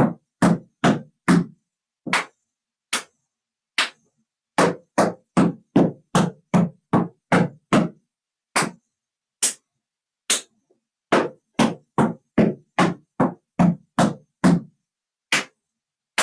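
Metal taps on tap shoes striking a plywood tap board, dancing the nine-count riff on the other foot. The taps come in quick runs broken by short pauses and single strikes.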